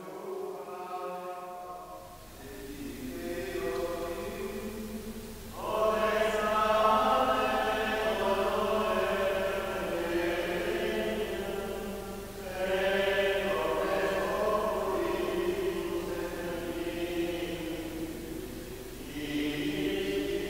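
Premonstratensian canons chanting Gregorian chant in Latin, their men's voices singing in phrases with short breathing breaks between them.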